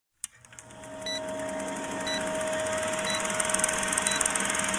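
Vintage film countdown sound effect: the fast, even clatter of a film projector fading in over a steady hum, with a short high beep once a second as the numbers count down, four times.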